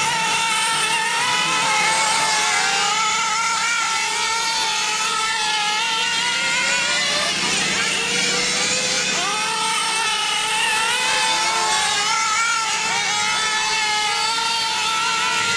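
Several nitro RC late model cars' small two-stroke glow engines running at high revs, overlapping, their high pitch rising and falling again and again as the cars lap the oval.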